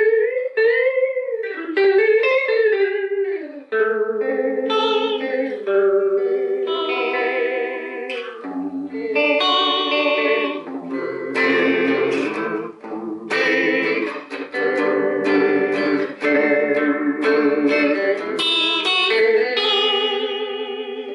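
Hollow-body electric guitar played through an Electra EP-401 digital delay set to vibrato: single notes and chords with a steady, fast pitch wobble on every note. In the first few seconds some notes slide up and down in pitch.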